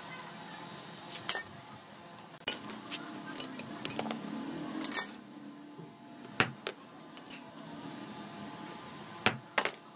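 Steel clamp arms and strips clinking and clanking against a steel block as they are handled and set down: one sharp clink about a second in, a run of clinks and scrapes from about two and a half to five seconds, and a few single clinks later on.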